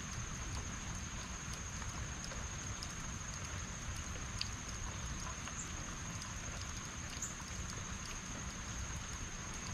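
Rain falling steadily, an even hiss with scattered faint drip ticks over a low rumble. A thin, steady high-pitched tone runs underneath.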